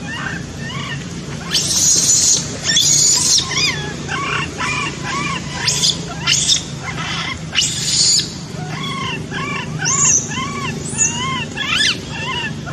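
Baby macaque crying: a rapid string of short squeaky calls, each rising and falling in pitch, broken by several harsh shrill screams.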